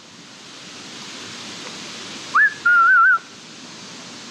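A person whistling to call a dog: a quick rising note, then a short warbling whistle, about two and a half seconds in.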